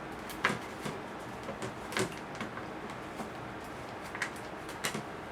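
Hands working the plastic trays and bolts of a worm compost bin: a few scattered sharp clicks and knocks, the loudest about two seconds in.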